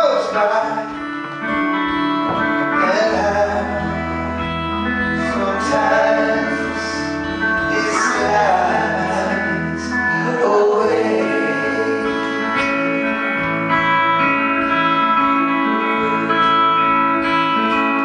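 Live band playing a song on acoustic and electric guitars with keyboard, two men singing in harmony through roughly the first ten seconds; after that the instruments carry on with held chords and little or no singing.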